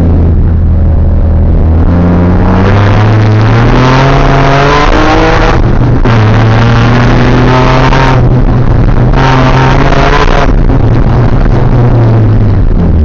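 BMW 325i Compact's straight-six engine heard loud from inside the cabin, pulling hard: the revs climb, drop sharply, climb again and drop again, then rise briefly once more near the end before settling.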